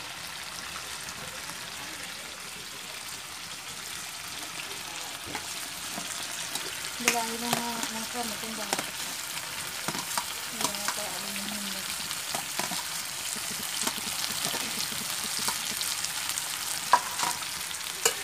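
Chicken curry sizzling in a metal pot, with a spoon stirring and clicking against the pot. The sizzle grows louder about two-thirds of the way in, after potatoes and tomatoes go into the pot.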